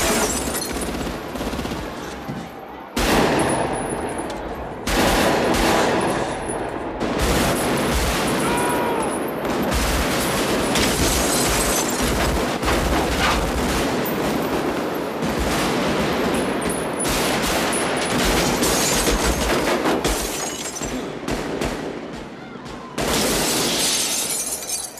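Long, dense bursts of automatic rifle fire, with rounds striking police car bodies and glass. The fire breaks off and jumps abruptly several times.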